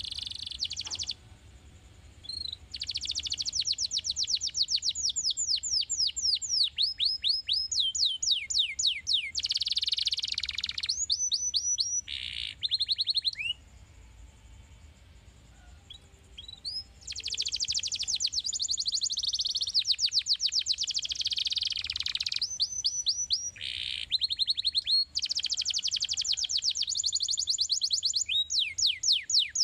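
Domestic canary singing: long, rolling trills of rapid, repeated falling high notes, strung into phrases. There is a pause of about three seconds just after the middle.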